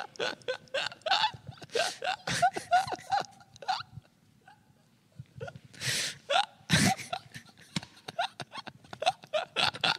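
Men laughing in choppy, breathy bursts, with a short lull about halfway and two loud gasping breaths just after it.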